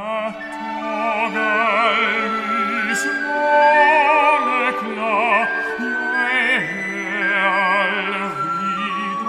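Classical baritone singing a slow, lyrical melody with wide vibrato over sustained orchestral accompaniment.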